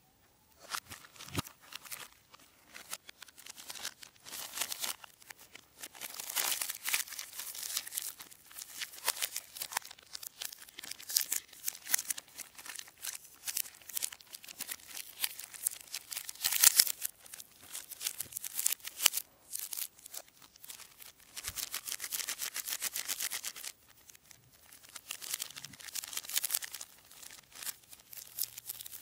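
Plastic wrappers of Kinder chocolate bars and cardboard packaging crinkling and rustling as they are handled, in irregular crackles, with a steadier stretch of crinkling about three-quarters of the way through.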